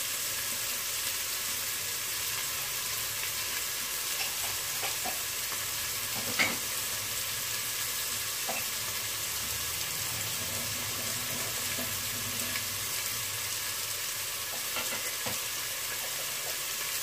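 Chopped onions and green chillies sizzling in hot oil in an aluminium pressure cooker pot, a steady frying hiss with a few faint clicks, one louder about six seconds in.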